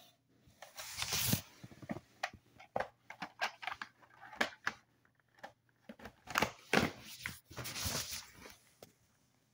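Handling noise as the recording phone is covered and moved about: irregular clicks and scratchy rustles of fingers and material rubbing over the microphone, with a few longer rubs about a second in and again near the end.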